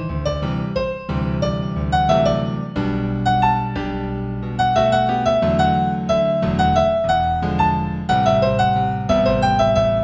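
Piano music: a piece in G major at a moderate tempo of 90, with a melody of evenly paced notes over held bass notes.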